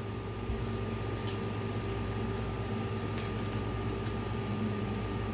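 Steady low background hum with a few faint, short clicks and clinks of a beaded metal chain necklace being handled.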